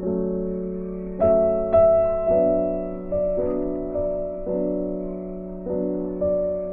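Background piano music: notes and chords struck every half second to a second, each ringing and fading.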